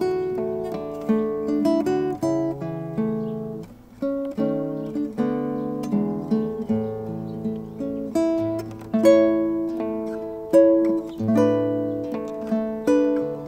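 Nylon-string classical guitar played fingerstyle: a melody of plucked notes ringing over bass notes, with a brief lull about four seconds in.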